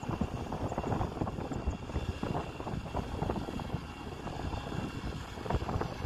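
Kobelco SK140 excavator's diesel engine running under load as it digs and lifts a bucket of soil, an uneven, steady rumble.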